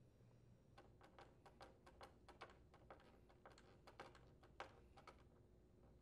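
Faint, irregular clicks and ticks, a few each second, of a Torx screwdriver and metal screws against the plastic engine cover of an Echo PB-250LN leaf blower as the cover's mounting screws are driven in.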